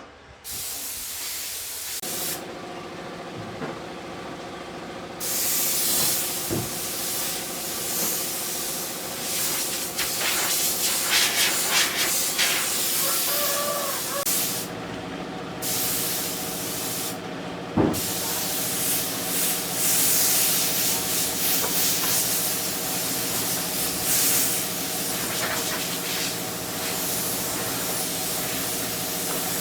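A pressurised spray hissing hard, with a machine's steady hum underneath from about two seconds in. The spray cuts off briefly twice in the middle, as if the trigger were let go.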